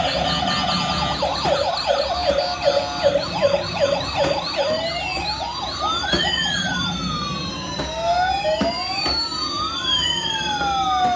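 Police-car siren: a fast yelp, about four rises and falls a second, for the first four seconds or so, then changing to a slow wail, with two wailing tones rising and falling out of step with each other.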